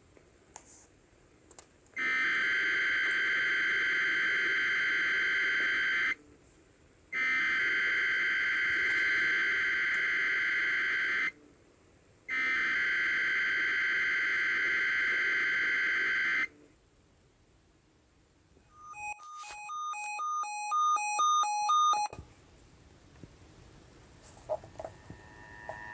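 Three long bursts of EAS/SAME digital header data tones, each about four seconds with a one-second gap, the encoded header announcing an emergency alert on NOAA Weather Radio. About two seconds later comes a roughly three-second alert tone of quickly alternating beeps.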